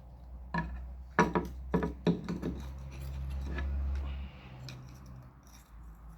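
Hands working loose a car's windscreen wiper linkage: a quick run of sharp clicks and knocks of hard parts, with a low rumble underneath that stops about four seconds in.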